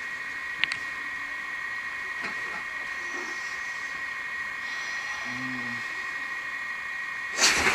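A steady high-pitched electronic whine. Near the end comes a sudden loud, harsh blast of noise lasting about a second: a jump-scare sound played from a laptop's speakers.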